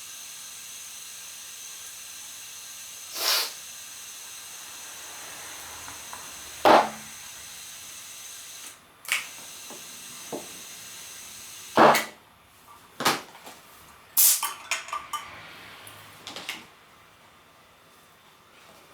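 Steady hiss of compressed air, as from inflating a motorcycle tyre, with a few sharp knocks over it. The hiss stops about halfway, and several clicks and metallic clatter of tools being handled follow.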